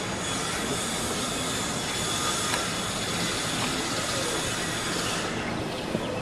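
A steady hiss with a faint high whine in it, cutting off suddenly about five seconds in.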